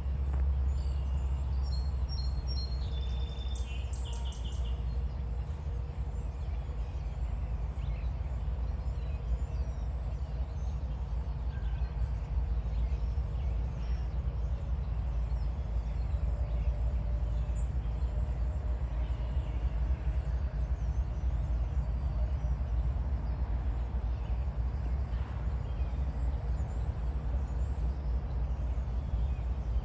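Steady low rumble throughout, with a bird chirping in short stepped notes a few seconds in.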